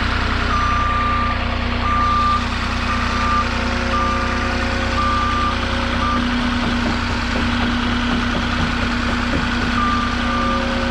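A forklift's reversing alarm beeping about once a second over its steady running engine, as the machine backs up. The beeping stops about six seconds in and starts again near the end.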